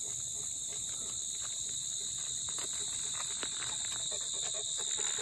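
Steady high-pitched drone of insects, with a large dog panting and its paws scuffing lightly over gravel as it walks.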